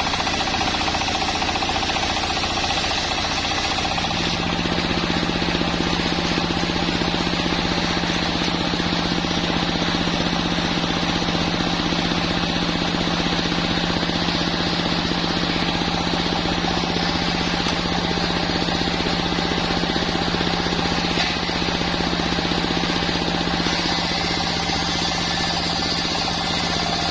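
Sawmill machine running steadily as it saws a waru (sea hibiscus) log, with a rapid, even knocking. About four seconds in, a steady low hum joins in and holds.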